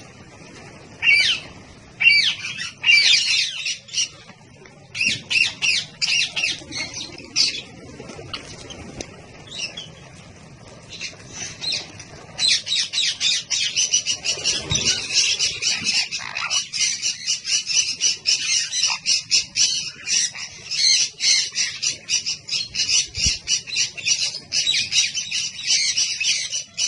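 Many small birds chirping, short high calls coming in scattered bursts at first and running almost without pause from about halfway through.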